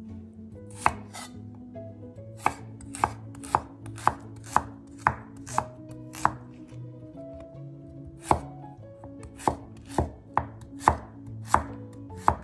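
Chef's knife slicing radishes on a wooden cutting board: sharp knocks of the blade striking the board, about sixteen in all, mostly half a second to a second apart, with a pause of about two seconds near the middle.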